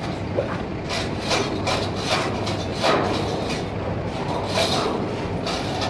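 Shipyard work noise: irregular rasping, scraping strokes, about two or three a second, over a steady low hum.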